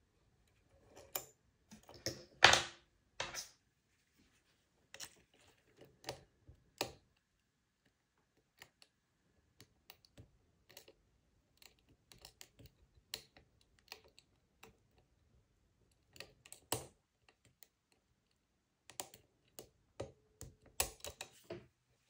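Small irregular metallic clicks and taps of a lock pick and tension wrench working the pin stack of a Versa six-pin euro cylinder lock, the loudest about two and a half seconds in and a quick run of clicks near the end.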